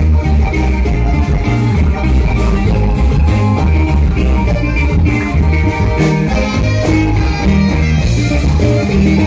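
Live band music played loud through a stage PA: guitars and bass over a steady beat.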